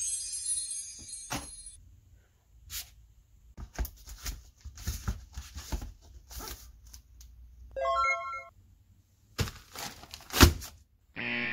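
Cardboard and clear packing tape being handled around a bubble-wrapped parcel: a run of crackles, clicks and knocks. A high shimmering sound fades out in the first couple of seconds, a short electronic chime sounds about eight seconds in, and sharp thumps follow, the loudest near the end, just before music starts.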